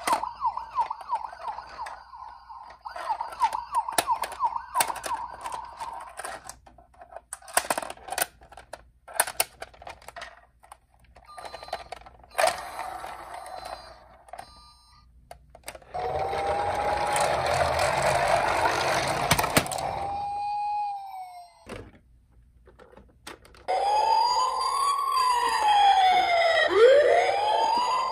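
Toy ambulance electronic sirens: first a fast warbling siren, then clicks and knocks of plastic toys being handled. About two-thirds of the way in, a siren tone slides over a rushing noise for a few seconds. Near the end a siren wails up and down.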